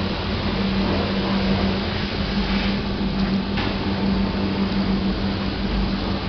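Amika 6XL commercial dishwasher running: a steady pump hum under an even rush of water spraying inside the machine.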